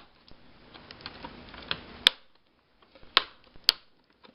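Plastic retaining clips of a laptop's front screen bezel snapping loose as the bezel is pried off: three sharp snaps, the first about two seconds in, with lighter plastic ticks between.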